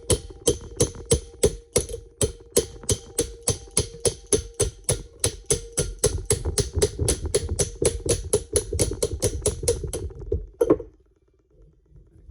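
Rapid, even blows of a striking tool on a steel steering knuckle, driving out a stuck part: about three ringing metal strikes a second, stopping with one last blow near the end.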